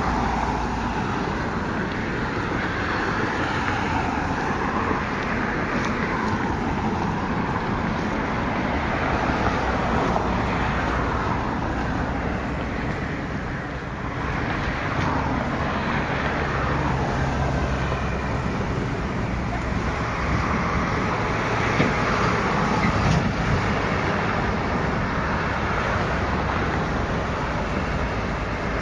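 Steady road traffic noise, with cars passing on a street that swell and fade.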